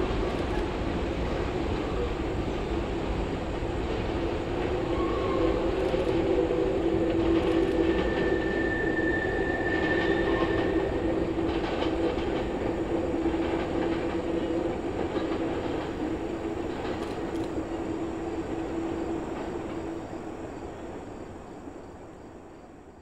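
Reading and Northern freight cars rolling past on a curve: a steady rumble of steel wheels on rail with a low hum, and a brief high wheel squeal about eight seconds in. The sound dies away near the end as the last cars pass.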